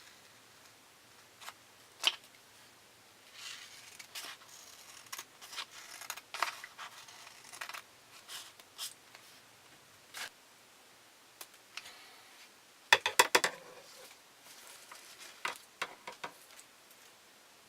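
Scissors snipping through sticker paper, cutting out labels in irregular, separate snips with pauses between them. About two-thirds of the way through there is a quick run of sharp clicks, the loudest sound.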